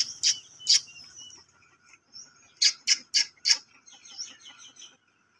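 Birds calling: two short sharp calls near the start, then four more in quick succession about three seconds in, with softer chirps after them. A faint steady tone runs underneath.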